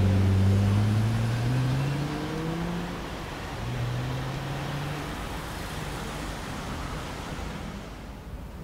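Lexus LFA Nurburgring Edition's 4.8-litre V10 pulling away at low speed: the engine note climbs, drops at a gear change about three and a half seconds in, climbs again, then fades as the car drives off.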